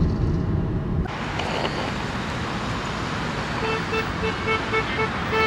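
A car horn giving a quick run of about eight short toots, starting past the middle, over steady road noise.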